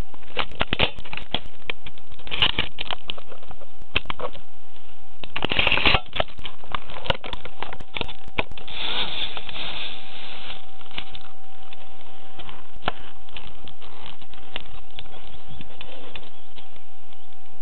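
Small electric RC hovercraft's motors and propellers running close to the onboard camera's microphone: a steady whine with a constant pitch, overlaid with dense crackling and clicks, heaviest in the first several seconds.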